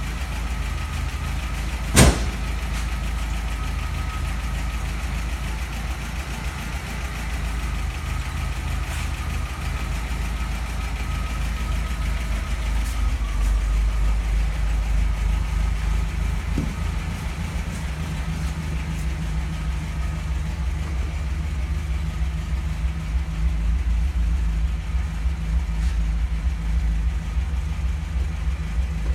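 1979 MGB's 1.8-litre four-cylinder engine idling steadily, with one sharp click about two seconds in.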